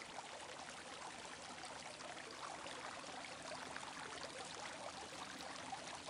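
Dry paintbrush dragged in strokes across canvas, a faint steady scratchy rustle.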